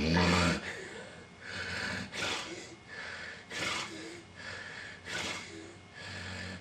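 Sleeping patient with obstructive sleep apnoea: a loud snore-snort, then a run of short gasping, snoring breaths less than a second apart. These are the convulsive breaths that follow a stop in breathing.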